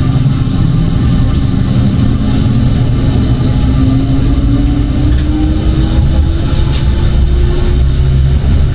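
Electric tram running on its rails with a low rumble, its motor whine rising steadily in pitch as it gathers speed.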